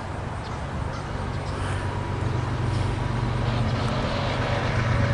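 Diesel locomotive at the head of an empty coal train approaching: a steady low engine drone that grows gradually louder as it nears.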